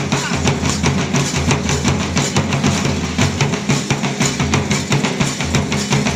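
Large barrel drum beaten in a fast, dense, steady rhythm.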